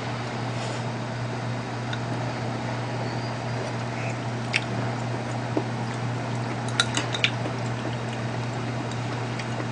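Eating sounds: metal chopsticks picking food out of an earthenware pot of stew and off dishes, with a few sharp, light clicks scattered through and faint wet sounds of broth. A steady low hum sits underneath.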